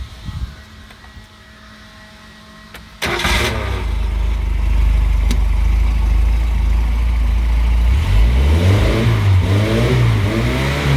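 Carbureted inboard engine starting suddenly about three seconds in and settling into a steady idle, then revved up and down three times near the end. It picks up cleanly without hesitating, now that the hose from the old mechanical fuel pump that was pulling air into the carburetor has been disconnected.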